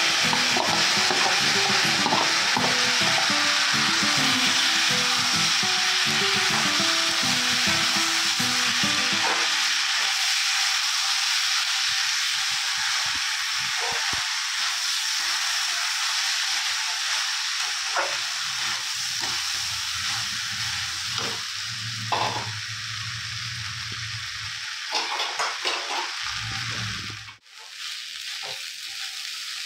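Soaked rice coated in ghee and spices sizzling steadily as it fries in hot ghee in a metal kadai, with a spatula stirring and scraping against the pan. The sound drops out sharply for a moment near the end.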